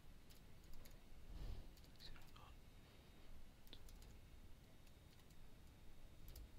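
Faint computer keyboard keystrokes, scattered and irregular.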